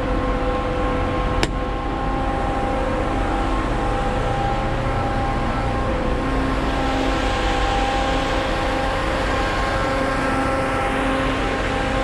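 Grain dryer fan running steadily with a constant hum over a low rumble, left on with the burner shut off so the hot corn cools. A single sharp click about a second and a half in.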